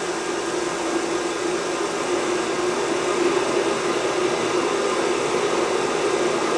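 Steady mechanical whirring noise, even throughout with no breaks.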